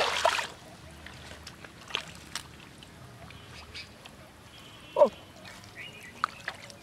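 Hands digging into wet mud and water, a noisy splash right at the start, then scattered small squelches and clicks. A short animal call falls in pitch about five seconds in.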